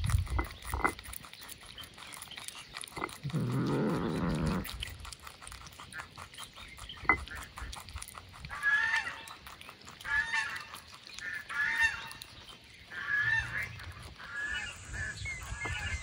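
Honking, duck-like bird calls: one longer low call about three to four seconds in, then a run of shorter calls roughly once a second through the second half.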